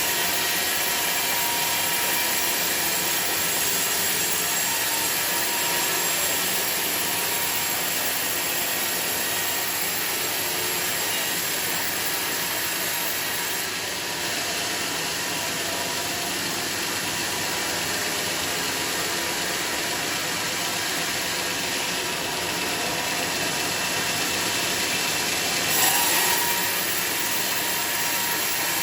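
Sawmill machinery running steadily, a continuous mechanical noise, with a brief louder swell and a wavering tone near the end.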